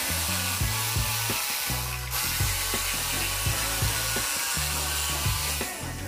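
Electric jigsaw running steadily as it cuts a curved spoon outline in a wooden board, stopping near the end, under background music with a bass line and a steady beat.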